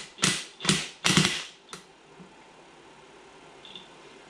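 Hand ratchet wrench clicking in four short bursts within the first second and a half, then one sharp click.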